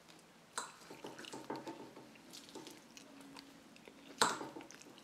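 A fork pulling apart a grilled grouper fillet on a plate: soft squishy tearing of the flesh with light clicks and scrapes of the tines on the plate. The sharpest click comes about four seconds in.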